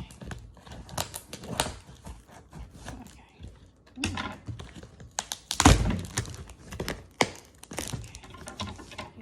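Scissors cutting through packing tape on a cardboard box: irregular snips, crackles and rustling as the box is worked. About five and a half seconds in comes one louder thump from the box being handled.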